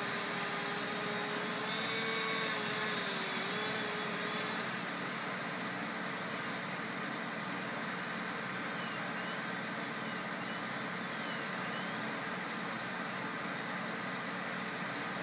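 Steady drone of a fire engine's motor running, with a wavering whine over it for the first four seconds or so that then fades out.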